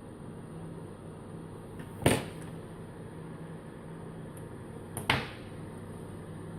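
Two sharp knocks about three seconds apart, the first the louder, over a steady low electrical hum at a microsoldering workbench.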